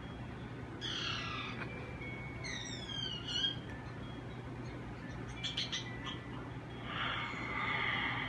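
High-pitched, creature-like chirping squeals from a person playing a cyclops, heard through a TV speaker over a steady low hum. There is a falling squeal about a second in, a quick run of falling chirps around three seconds, and a longer, noisier squeal near the end.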